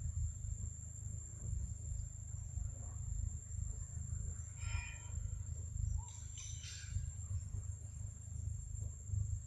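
Insects shrilling in one steady, high-pitched drone, over an uneven low rumble. Two short calls from an animal stand out, about halfway through and again a second or two later.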